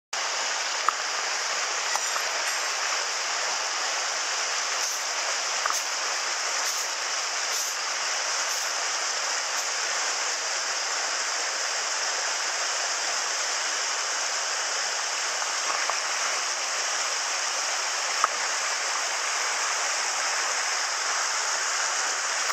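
Mountain headwater stream rushing steadily over boulders and spilling down a small cascade into a pool, with a few faint clicks.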